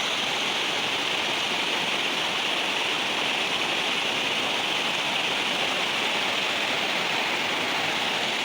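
Floodwater from an overflowing river rushing in a strong current, a steady, unbroken rush of noise.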